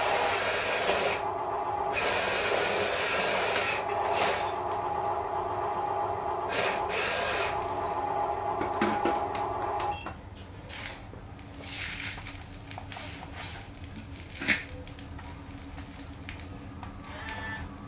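RC dump truck's small electric drive motor and gearbox whining steadily as the truck reverses, with brief pauses, then stopping just past halfway. After that comes the quieter whirring and clicking of the RC excavator's motors as it moves its arm, with one sharp click a few seconds later.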